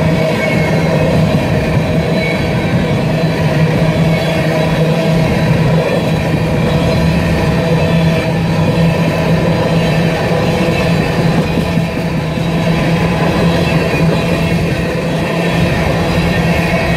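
Cars of an empty rock train rolling past close by: a loud, steady rumble of steel wheels on rail, with a steady low hum and fainter steady ringing tones over it.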